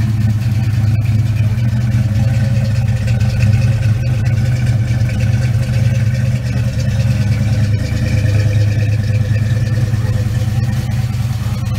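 1989 Mustang LX's 5.0 L (302 cu in) small-block Ford V8 idling steadily, running pretty good on its freshly redone wiring.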